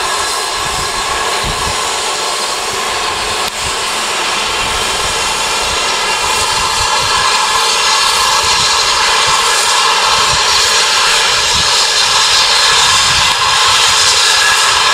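GWR King class 4-6-0 steam locomotive No. 6023 blowing off steam: a loud, steady rushing hiss that grows louder about halfway through. Low rumbles of wind buffet the microphone underneath.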